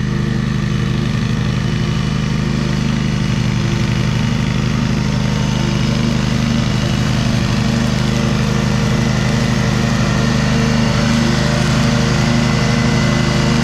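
Riding lawn mower engine running steadily while cutting grass.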